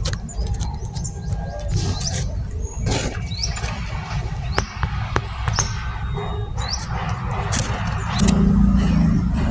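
Outdoor ambience: a bird gives short rising chirps about once a second over a steady low rumble, with scattered clicks and a low steady hum coming in near the end.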